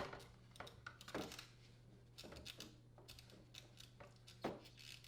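Near silence with a few faint handling sounds: soft clicks and knocks of hands working on the dishwasher door, over a low steady hum.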